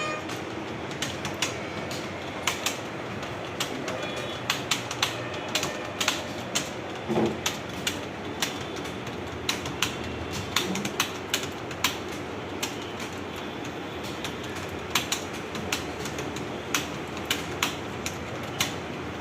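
Computer keyboards being typed on fast: an irregular patter of key clicks over a steady room hum.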